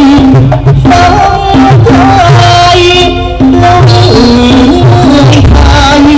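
Male likay lead singer singing an amplified, sliding melody with long held notes into a microphone, over instrumental accompaniment with a deep bass line.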